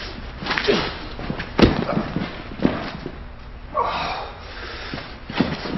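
Boxing-glove punches landing, with a sharp smack about a second and a half in as the loudest blow, among grunts and heavy breaths. About four seconds in comes a pained groan.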